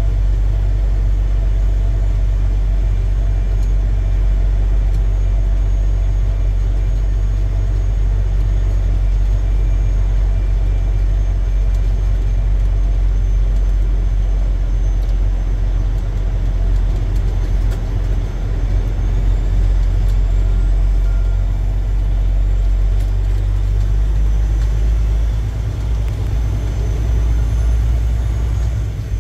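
A heavy truck's diesel engine running as it drives slowly, a steady low rumble heard from inside the cab. The rumble becomes less even near the end.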